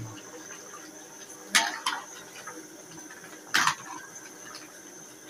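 A ladle knocking against the side of a metal cooking pot while stirring thick soup with chunks of chicken and yam: a couple of sharp clinks about a second and a half in, another about three and a half seconds in and one at the very end, over a faint steady hiss.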